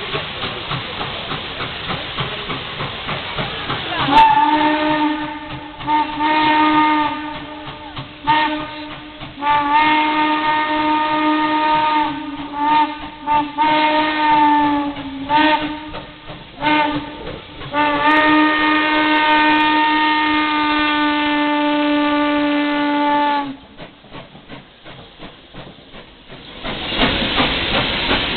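Nickel Plate Road 765, a 2-8-4 Berkshire steam locomotive, blowing its steam whistle for a grade crossing in a series of long and short blasts, the last one held for about five seconds. Before the whistle its exhaust chuffs steadily as it works toward the crossing. Near the end it passes close by with a loud rush of exhaust and steam hiss.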